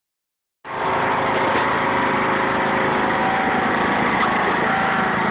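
Riding lawn mower engine running steadily, a constant drone that sets in about half a second in.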